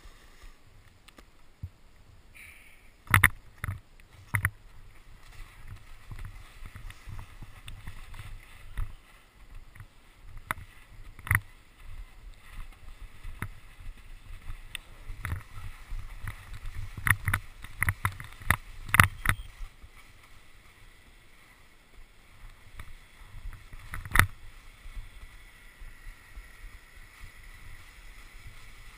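Snowboard sliding over wet, slushy snow: a steady swishing scrape with a low rumble underneath. Several sharp knocks cut through it, a cluster a few seconds in and another past the middle.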